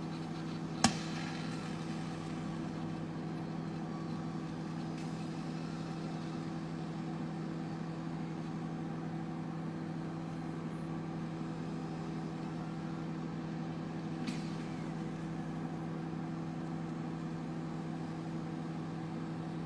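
Microwave oven running with a steady hum, with one sharp crack about a second in and a fainter one near the end of the first three quarters, as the lady fingers (okra) heating inside pop.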